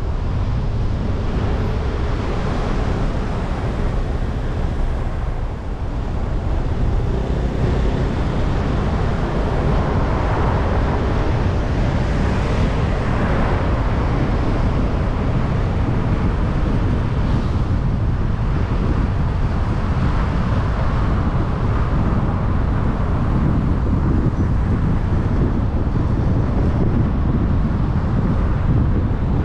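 Car driving along a city road: a steady low rumble of road and wind noise.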